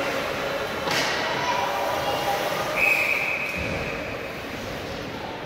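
Gym noise at a youth basketball game: a sharp bang about a second in, sneakers squeaking on the court, then a short high referee's whistle blast near the middle, over crowd chatter.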